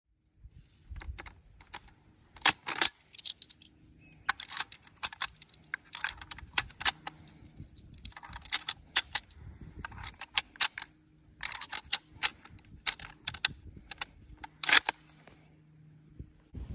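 Brass cartridges being pressed one by one into the magazine of a Turkish Mauser bolt-action rifle, with the bolt open: a long run of sharp metallic clicks and clacks in small groups.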